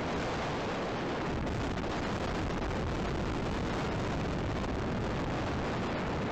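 Thunderstorm wind and rain hitting the nest camera's microphone: a steady, loud rush with no break.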